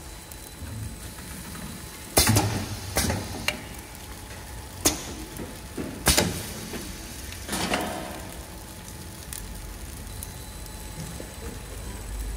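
Automatic nurungji (rice cracker) machine at work, its pneumatically driven press lids and rotating hot-plate table giving about five sharp metal clanks with short air hisses between about two and eight seconds in. A steady low machine hum runs underneath.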